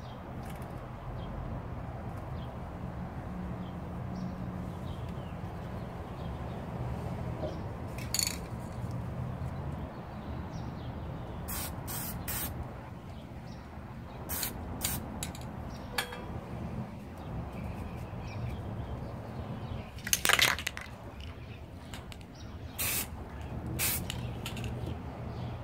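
Aerosol spray-paint can hissing in a series of short bursts, about ten in all, the longest about three quarters of the way in, as paint touch-ups go on through netting for a camouflage pattern. A steady low rumble sits underneath throughout.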